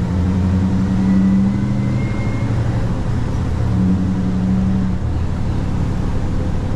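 Scania V8 diesel engine of a loaded log truck and trailer under way, a steady low drone whose note swells twice and eases back.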